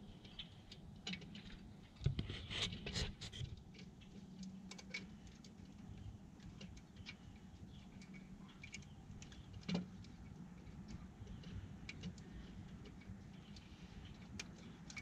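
Scattered small clicks, taps and scrapes of a hand tool against metal as a lower alternator mounting bolt is worked loose, with a cluster of louder knocks about two to three seconds in and another sharp tap near ten seconds.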